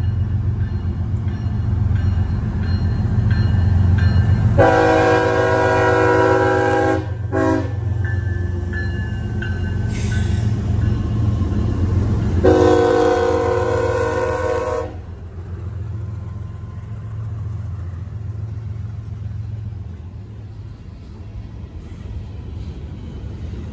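CSX diesel freight locomotives passing close by, engines rumbling, their air horn sounding a chord of several notes: a long blast, a short one, and a few seconds later another long blast. The level then drops to the steady rumble of boxcars rolling past.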